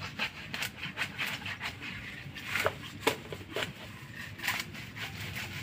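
Dry leaves and twigs rustling and crackling in dense undergrowth, with irregular sharp snaps, two of them louder about two and a half and three seconds in.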